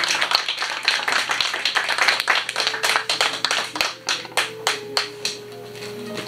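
A small audience clapping by hand, a patter of separate claps that thins out and stops about five seconds in.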